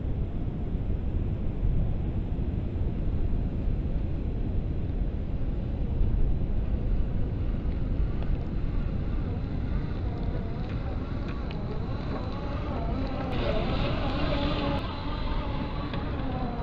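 Wind rumbling on the microphone, with the electric motor and gear whine of an RC4WD Gelande II Land Cruiser BJ40 scale crawler rising and falling in pitch. The whine grows louder over the last several seconds as the truck drives up and past.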